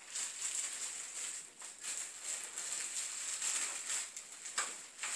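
Plastic wrapping around a flat-screen TV crinkling and rustling as it is handled and opened.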